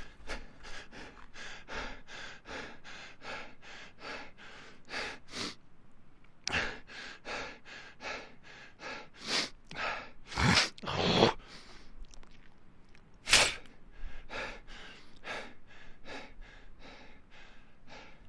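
A person breathing hard while running: quick, rhythmic breaths, about three a second. The breathing pauses briefly about five seconds in, and a few breaths in the second half are louder gasps.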